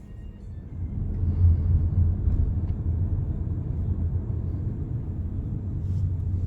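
Low, steady rumble of a car's engine and road noise heard from inside the cabin, growing louder about a second in.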